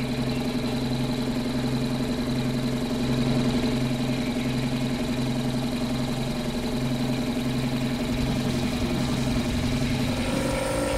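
An engine running steadily, with a low pulsing beat under its hum; its note shifts to a higher tone about ten seconds in.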